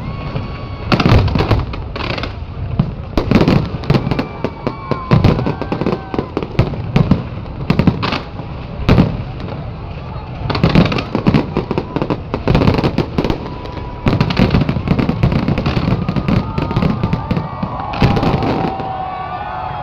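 Fireworks display going off: a continuous run of loud bangs and crackling bursts at irregular intervals, several close together at times.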